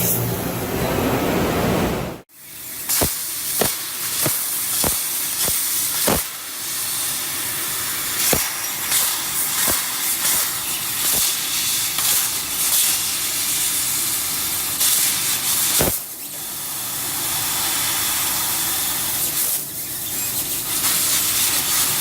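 CO2 laser cutting machine running with a steady hiss, with a run of sharp clicks about half a second to a second apart a few seconds in and another near the end. The hiss briefly cuts out about two seconds in.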